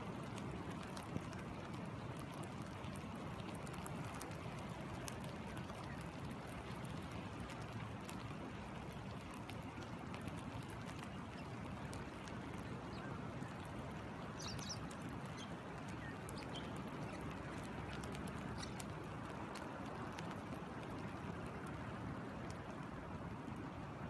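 Shallow river rushing steadily over its rocky bed, with rain falling close by as scattered sharp ticks.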